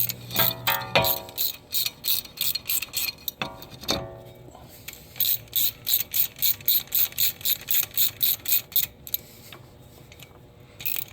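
Hand ratchet with a 5 mm hex bit clicking in even strokes, about three to four a second, as small bolts are snugged up, not torqued; it pauses briefly near the middle and stops near the end. A short metallic ring sounds twice in the first few seconds.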